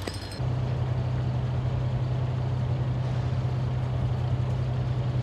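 A few sharp cracks at the very start, then a heavy truck engine, that of a police water-cannon truck, cuts in about half a second in and runs on as a steady, even low drone.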